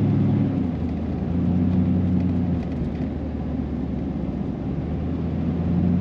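Inside the cab of a 2000 Chevrolet Silverado 3/4-ton pickup on the move: a steady low engine drone with road and tyre rumble. The engine note fades a little after the first second, stays weaker through the middle, and comes back strongly near the end.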